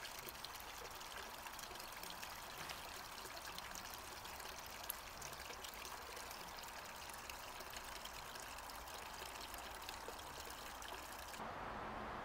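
Small stream trickling over rocks into a shallow pool, with many fine splashes and drips. It stops abruptly near the end.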